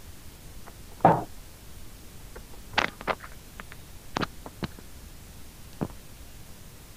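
A dull thump about a second in, followed by five scattered sharp clicks and taps, over a faint steady hiss.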